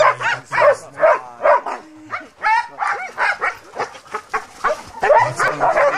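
A team of harnessed sled dogs barking and yelping excitedly, several at once, in a rapid unbroken string of calls, some sliding up in pitch: the impatient pre-start clamour of dogs eager to run.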